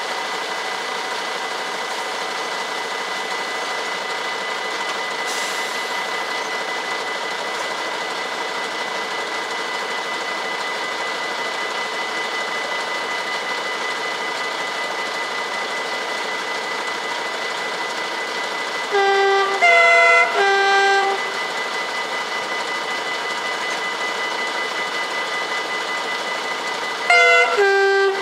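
Level-crossing warning bells ringing steadily. About two-thirds of the way through, a Plan U DE3 diesel train sounds its horn in three quick notes, and again briefly near the end.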